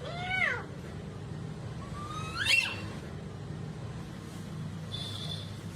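Two drawn-out meows: one rising and falling right at the start, a second rising one about two seconds in. A short high beep comes near the end.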